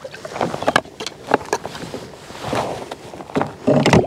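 A plastic folding fish-measuring board being opened and handled against a plastic kayak: a string of sharp clicks and knocks, with a short splash of water near the end.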